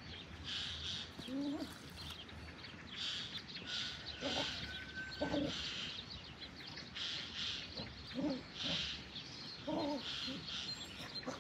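Birds calling in the background, with a few short, lower animal calls now and then and one held whistle-like note about four seconds in.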